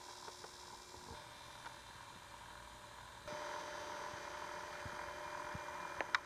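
Steady electrical hum with hiss, the hiss stepping up louder a little past halfway; a few faint clicks, then a quick run of sharp clicks near the end.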